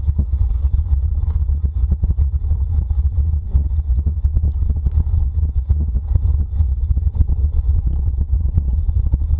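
Steady wind buffeting on the microphone and the rumble and rattle of a wheeled dryland dog-racing rig rolling fast over a dirt trail behind a running dog team.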